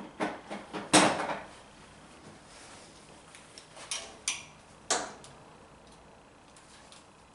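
Hand tools and small metal parts clinking and clanking as they are handled: a few sharp clicks, a louder clatter about a second in, and three more clicks about four to five seconds in.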